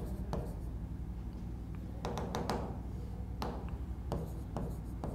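Stylus tapping and ticking on a pen tablet while a word is handwritten: small, irregular clicks, a few each second, over a low, steady hum.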